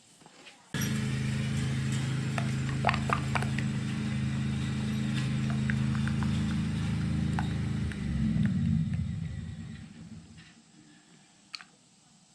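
A motor-driven machine running steadily. It starts abruptly about a second in, with a few light clicks over it, then wavers and dies away around eight to ten seconds in.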